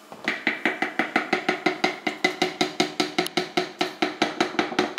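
Metal spoon tapping rapidly against the rim of a plastic NutriBullet blender cup, about six ringing taps a second, to knock a spoonful of peanut butter off into the cup.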